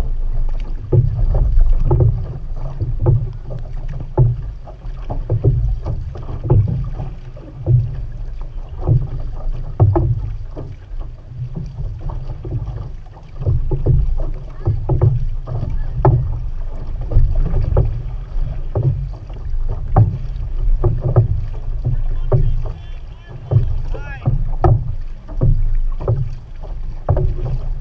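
Outrigger canoe being paddled at race pace: paddle blades dig and splash into the water in repeated strokes, swelling about once a second. Water rushes and slaps along the hull, with a heavy low rumble from the water close to the low-mounted camera.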